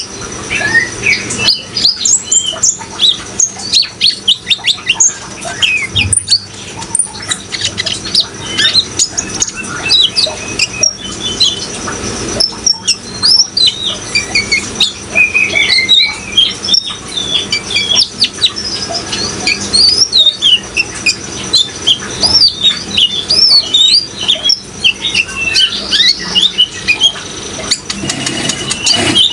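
Olive-backed sunbird (kolibri ninja) singing a fast, continuous run of high chirps and twittering trills over the steady sound of running water.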